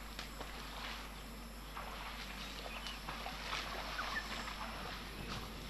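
African elephant calf wading in a muddy waterhole: irregular splashing and sloshing of water, a few splashes a second.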